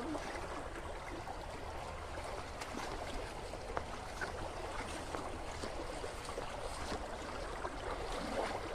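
Shallow water running steadily through a weed-choked channel, with a few faint clicks.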